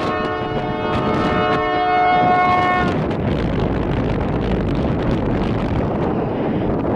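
Diesel locomotive air horn, on Canadian Pacific's EMD GP20C-ECO No. 2258, sounding one blast of about three seconds for a level crossing. Wind is rumbling on the microphone throughout.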